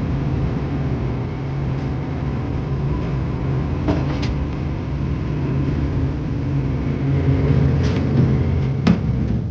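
A steady low mechanical hum, with a few short clicks or knocks over it.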